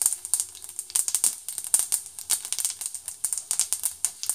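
Tadka of mustard seeds, urad dal and cumin seeds spluttering in hot oil in a frying pan: a steady sizzle with many quick, irregular pops.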